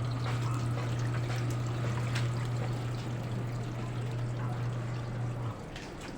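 Water pouring or trickling, over a steady low hum that cuts off about five and a half seconds in.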